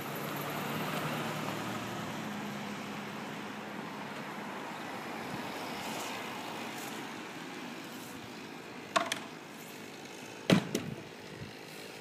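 A motor hums steadily in the background, then two sharp knocks come about a second and a half apart near the end. The second knock is the loudest sound.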